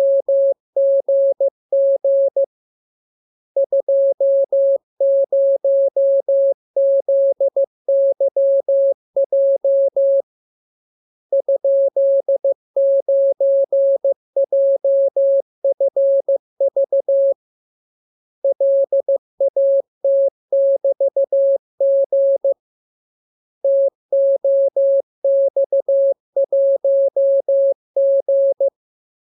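Morse code sent as a single steady tone of a little under 600 Hz, keyed on and off in dots and dashes at an even speed. The characters come in groups separated by pauses of about a second, four times.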